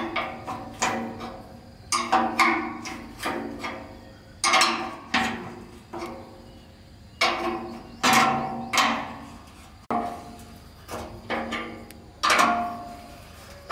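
A hammer striking metal again and again at an irregular pace, each blow ringing out briefly before the next.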